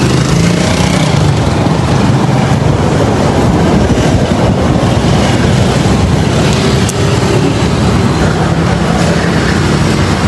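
Steady road traffic: motor vehicle engines running close by, a loud, continuous rumble with no let-up.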